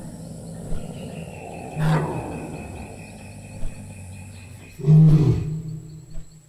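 Cartoon dinosaur roaring twice: a short roar about two seconds in and a longer, louder one about five seconds in.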